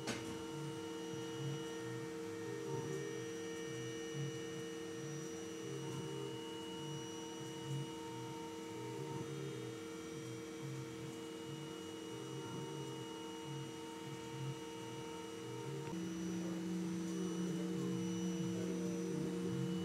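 Small CNC mill cutting a white plastic ball with an end mill: steady motor whine, with lower motor tones that switch pitch back and forth in a repeating pattern as the machine moves the tool around the ball. The tones shift to a new set near the end.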